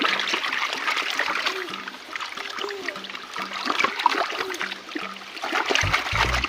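Stream water splashing and trickling as a dirty toy is washed in a small stream.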